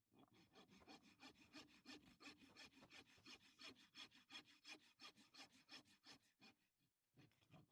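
Horse's hoof being rasped: a farrier's rasp scraping across the hoof in quick, even strokes, about four a second, that stop about six and a half seconds in.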